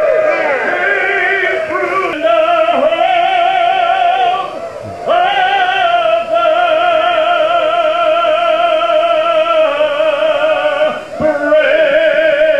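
Music with operatic singing: a voice holding long notes with strong vibrato over accompaniment.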